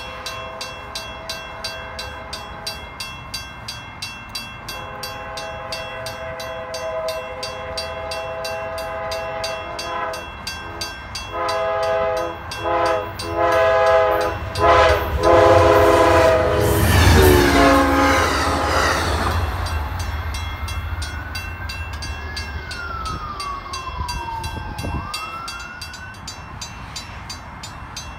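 Diesel passenger locomotive's air horn sounding for a grade crossing: long blasts, then a quick run of short blasts as the train comes through loud and close at speed. A crossing bell rings steadily throughout.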